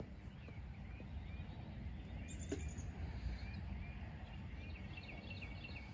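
Birds chirping faintly: short chirps repeated about every half second over a low steady outdoor rumble, with a single light click about two and a half seconds in.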